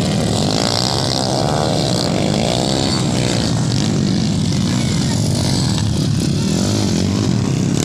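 Several motocross dirt bikes racing past, their engines revving loudly with a pitch that keeps rising and falling as they go by and accelerate through the bend.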